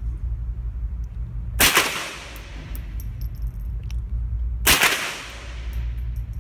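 Two gunshots from a scoped semi-automatic rifle fired one at a time, about three seconds apart, each echoing briefly off the walls of an indoor range, over a steady low rumble.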